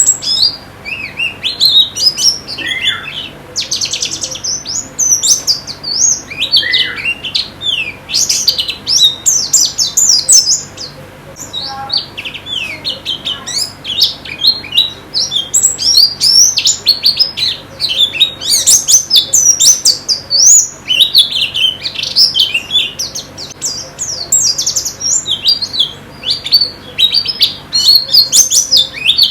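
White-eyes (pleci) singing: rapid, high-pitched twittering chirps, nearly continuous, with a brief lull about twelve seconds in.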